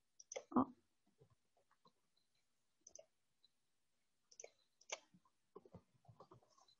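Faint clicks of a computer keyboard and mouse: a few scattered clicks, then a quicker run of keystrokes near the end.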